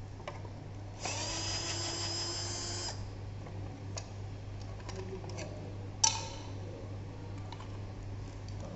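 Small electric screwdriver running at a steady whine for about two seconds, then a few light clicks and one sharp click of small parts being handled.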